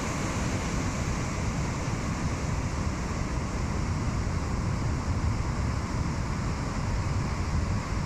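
Steady rushing noise with wind buffeting the microphone, heaviest and most fluttery in the low end.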